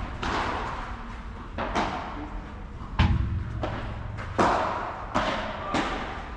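Padel rally: the ball popping off solid paddle rackets and bouncing on the court, about seven sharp impacts at irregular spacing, each with a short ring-out. The impact about three seconds in is the heaviest thump.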